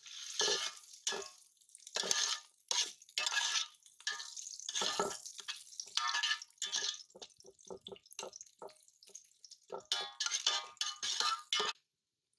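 Metal spatula stirring and scraping the bottom of a metal pot as onion, garlic and green chilies fry in oil, in repeated irregular strokes over a sizzle. It cuts off suddenly near the end.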